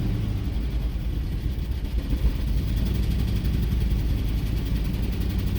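2006 Jeep Commander's 4.7 L V8 running steadily at low speed with a random misfire (P0300), which the mechanic takes as a sign that the engine itself is no good.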